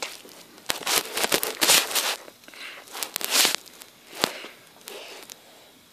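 Handling noise: rustling, bumps and scattered clicks as plush toys are moved about by hand and the recording device is handled close up.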